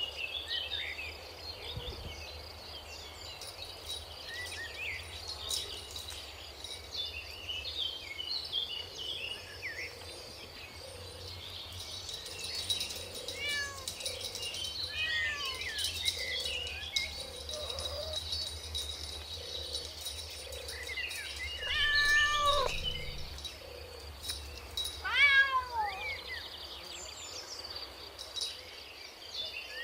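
Kittens mewing again and again in short, high, falling calls, with two louder, longer meows in the last third. A steady high chirping runs underneath.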